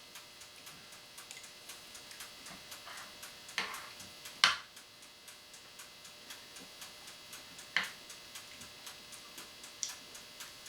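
Steady fast mechanical ticking, about three to four ticks a second, with a few louder, sharper clicks in between.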